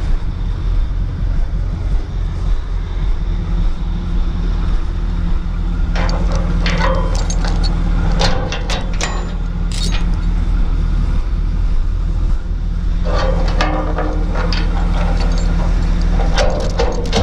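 Heavy diesel engine idling steadily, with bursts of sharp metallic clanks and rattles about six seconds in and again near the end.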